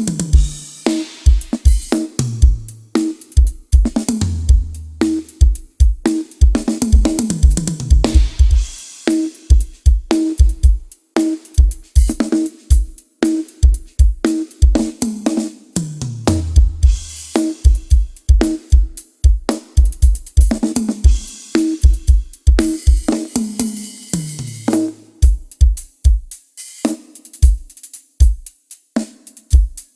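Drum kit played as a sound test: a steady beat of kick drum and snare with cymbals and hi-hat, broken every few seconds by tom fills that step down from the higher toms to the floor tom.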